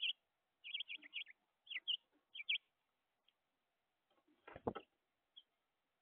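A quick series of short, high bird chirps in the first two and a half seconds, then a louder flutter and thump about four and a half seconds in, as a larger bird lands on the plastic feeder.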